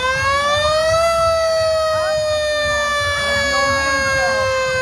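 Fire truck siren, rising in pitch for about a second and then slowly falling, over a low rumble.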